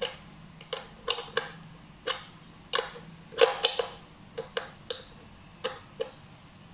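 Metal open-end wrench clicking on the kingpin nut of a Penny skateboard truck as it is tightened in short turns: about fifteen sharp, uneven ticks.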